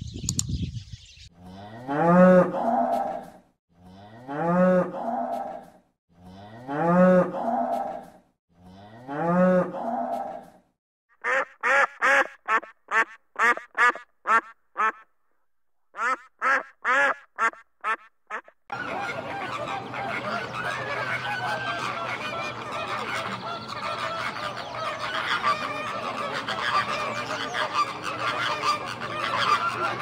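A run of animal calls. First come four long, drawn-out calls that rise and fall in pitch. Then about a second after the tenth second, ducks start quacking in quick, short calls, and from around two-thirds of the way through they give way to a dense, continuous din of many animals calling at once.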